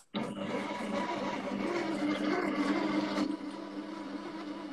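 Compact Cook Pro kitchen robot's motor running its shortcrust-pastry program, mixing the dough in the bowl: a steady hum with a wavering low tone. It drops to a quieter level about three seconds in.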